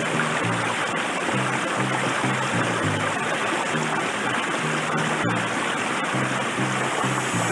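Shallow forest stream rushing and splashing steadily over rocks, with background music's bass notes pulsing in a steady rhythm underneath.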